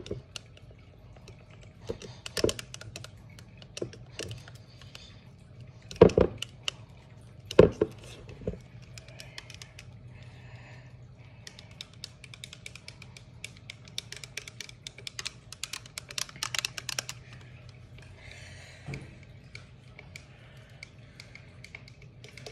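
A stirrer tapping and clinking against a drinking glass, then scattered clicks and taps of things being handled, with two louder knocks about six and seven and a half seconds in.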